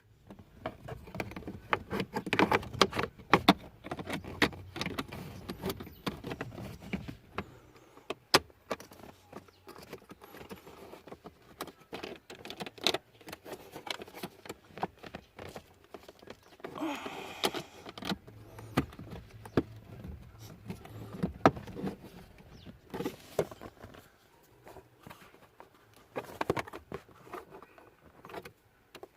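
Hands working on a car's cabin air filter housing: scattered sharp plastic clicks and knocks, with stretches of rustling and scraping as the filter and its cover are handled.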